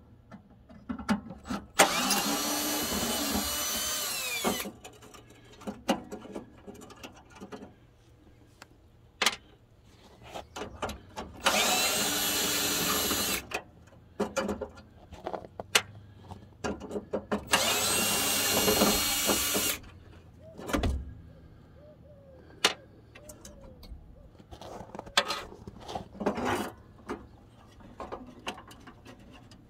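Cordless drill-driver whining in three runs of two to three seconds each, backing out the screws that hold the old sealed-beam headlights, its pitch dropping as it spins down at the end of each run. Between runs, short clicks and knocks of screws and plastic trim being handled.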